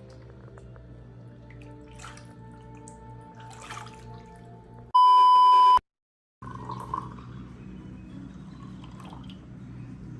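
Soft, slow background music with long held tones. About five seconds in, a loud steady beep lasting just under a second cuts in, followed by a brief dead silence before the soft music returns.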